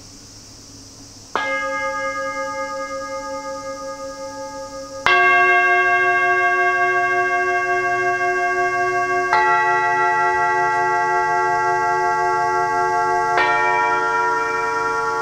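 Hammered metal singing bowls struck one after another, four strikes in all, each ringing on with several steady, gently wavering tones that overlap with the next. A low bowl tone is already ringing faintly before the first strike.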